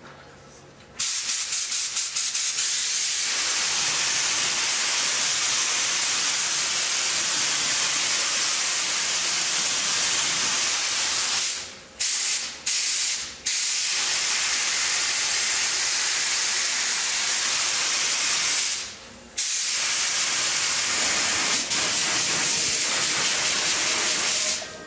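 Compressed-air spray gun spraying primer: a steady, loud hiss of air and atomised paint that starts about a second in with a few stuttering bursts as the trigger is worked. It breaks off briefly a few times when the trigger is released, and stops just before the end.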